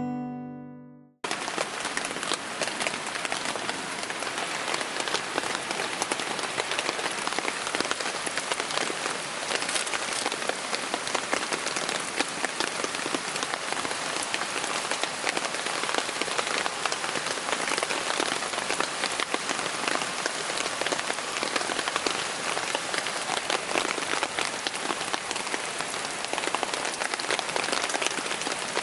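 Heavy downpour: steady rain with a dense spatter of drops striking a surface. Background guitar music dies away in the first second.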